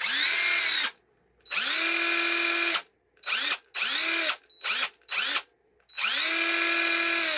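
DeWalt 20V Max cordless impact driver running free with no load, its motor whine rising and falling with each squeeze of the variable-speed trigger. Seven trigger pulls: three long runs of about a second or more and four short blips in between.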